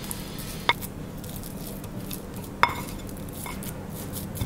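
Silicone spatula stirring and scraping a crumbly microwaved toothpaste mixture in a glass bowl, working in a drop of glycerin to bind it, with a few short clicks where the spatula knocks the glass.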